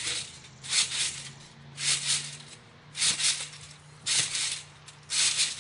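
Trampoline springs and mat rattling under repeated bounces, one short burst about every second.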